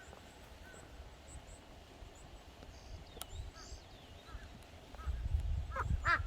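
Crow cawing near the end, over faint high chirps of small birds, with a low rumble starting about five seconds in.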